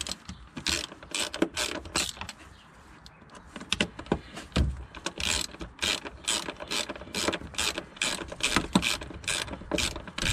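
Hand socket ratchet with a Torx bit clicking as it undoes the screw on a fuel filter bracket, a run of sharp clicks at about three a second with a short break about two seconds in.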